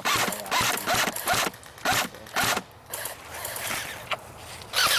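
Airsoft guns firing in short rapid bursts, a string of quick rattling volleys about half a second apart, then a pause and a longer burst near the end.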